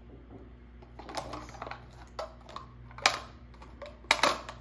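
Scissors snipping and clicking as a small plastic toy trash can is cut free from its packaging. The clicks are irregular, with a sharp one about three seconds in and the loudest cluster just after four seconds.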